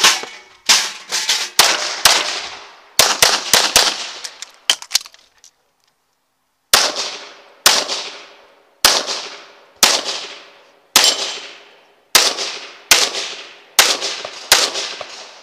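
CZ Tactical Sport Orange pistol firing a practical-shooting stage: a fast string of shots, many in quick pairs, through the first five seconds, a gap of about a second and a half, then nine shots roughly a second apart. Each shot has a metallic ringing tail.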